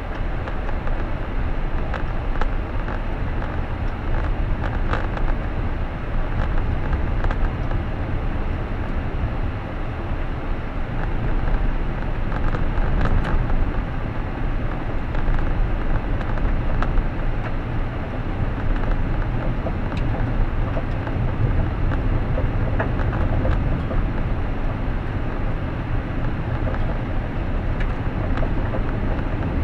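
A car being driven at a steady pace: a continuous low rumble of engine and tyre noise heard from inside the cabin, with a few light ticks.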